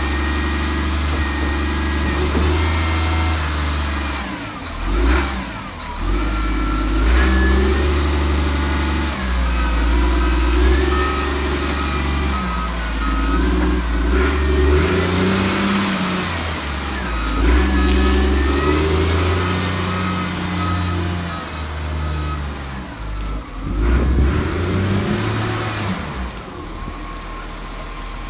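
CAT 950G wheel loader's diesel engine revving up and down again and again as the machine works, with a whine that rises and falls alongside it. Evenly spaced beeping at one pitch comes in twice, about ten and about nineteen seconds in. The engine settles to a steady idle near the end.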